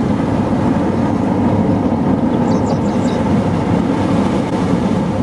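Steady low rumble of a vehicle driving, road and engine noise heard from inside the cabin.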